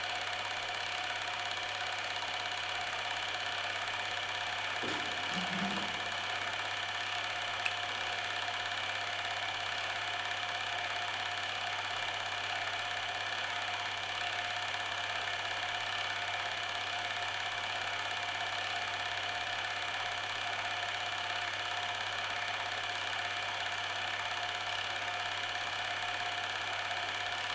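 A steady mechanical whir and hum, constant in pitch and level throughout, with one short click about eight seconds in.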